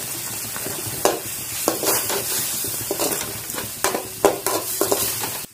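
Ground coconut-chilli masala sizzling in oil in a wide kadai while a slotted spatula stirs and scrapes it, with a steady hiss and repeated scraping strokes against the pan.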